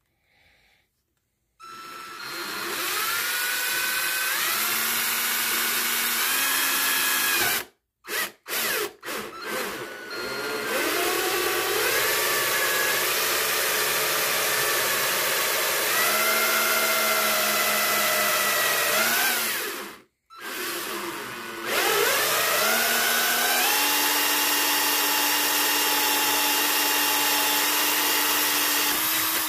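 Cordless drill with a hole saw cutting through the ATV's plastic front panel. The motor whine rises and steps up in pitch as the trigger is squeezed. It comes in a few short bursts about eight seconds in, stops briefly about twenty seconds in, then runs steadily again.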